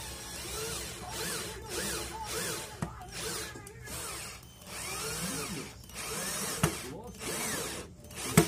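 Electric drill running in short runs of a second or two with brief pauses, its pitch rising and falling within each run as the bit works into a coconut shell. A couple of sharp clicks stand out later on, the loudest just before the end.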